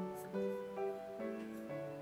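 Soft instrumental background music: a gentle melody of held notes changing every few tenths of a second.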